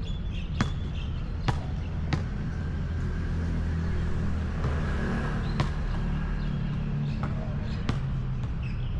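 A basketball bouncing on a hard outdoor court: about five separate sharp bounces at uneven intervals, a second or more apart, over a steady low background rumble.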